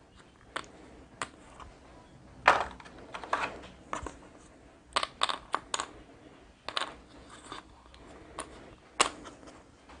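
Board-game tokens being handled and set down on a table: scattered, irregular sharp clicks and taps, some in quick clusters of two or three.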